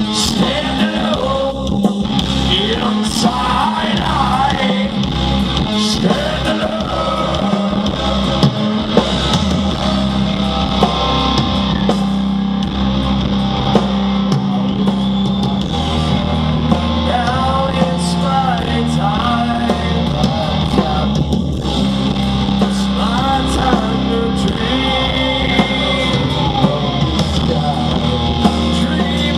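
Live hard rock band playing loud: distorted electric guitar and bass, drums and a male singer, recorded from the crowd.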